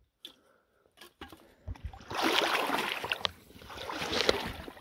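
Shallow creek water splashing and sloshing as someone wades in it, with a few light clicks. It starts about two seconds in, is strongest for a second or so, then eases.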